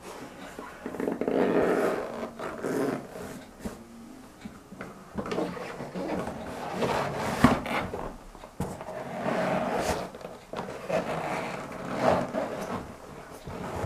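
Rubber wellington boots trampling and crushing other rubber boots on a tiled floor: irregular rubbing and scraping of rubber on rubber, with a sharp knock about seven seconds in.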